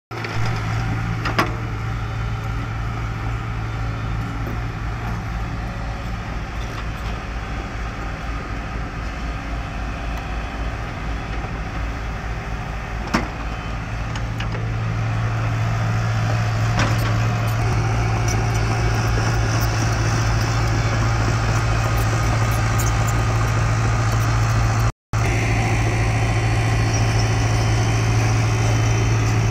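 Tracked mini excavator's diesel engine running with a steady low drone, growing louder about halfway through as the machine works. Two sharp knocks stand out, one near the start and one around the middle, and the sound drops out for an instant near the end.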